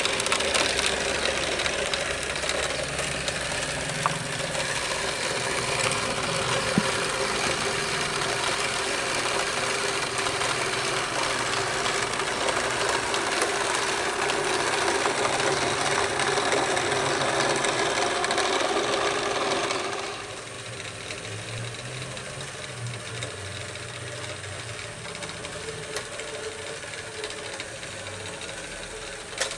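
LEGO Power Functions XL motor running, driving the model combine harvester's chain drive and its moving reel, conveyor and thresher: a steady mechanical whir of plastic gears and chain. It gets clearly quieter about two-thirds of the way through and keeps running.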